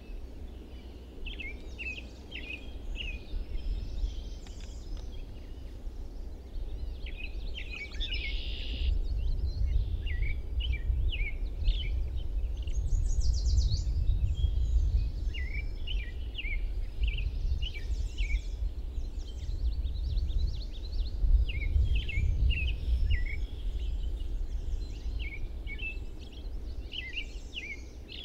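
Songbirds calling with many short chirps, with a brief fast trill about halfway through. Under them runs a low rumble that swells and fades.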